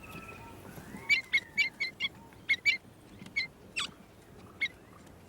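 Rosellas calling: a run of short, sharp notes, some in quick pairs, starting about a second in, over faint whistled glides.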